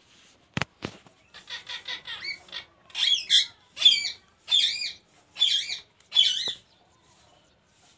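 Rose-ringed parakeet calling: a run of quick chattering notes, then about five loud warbling screeches, each wobbling up and down in pitch, spaced a little under a second apart. Two sharp clicks sound just before the calls begin.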